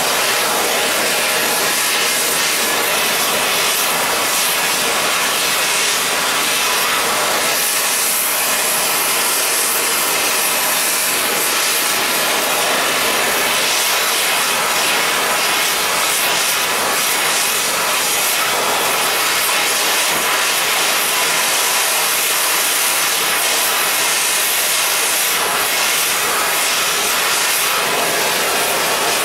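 Gas torch flame hissing steadily as it preheats a heavy aluminum section before TIG welding.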